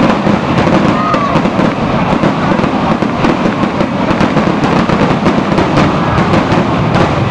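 Aerial fireworks going off in a rapid, continuous barrage: many crackling reports close together over a steady rumble of bursts.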